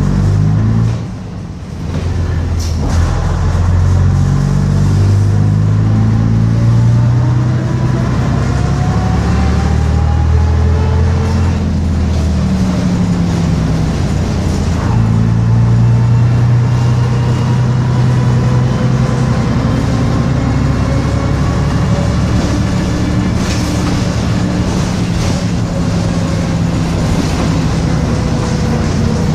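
Bristol RELL6L bus's diesel engine pulling the bus through the gears. Power drops off briefly about a second in, then the engine and a whine rise in pitch as it accelerates, with another gear change about halfway and a long, slow rise after it.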